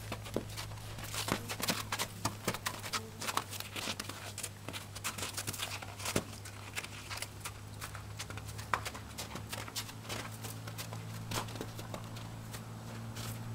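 A horse walking on packed snow and slush: an irregular run of soft hoof crunches and thuds over a steady low hum.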